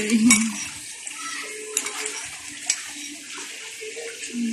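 Shallow floodwater flowing steadily, with a few light knocks. A short voice-like hum sounds near the start and again near the end.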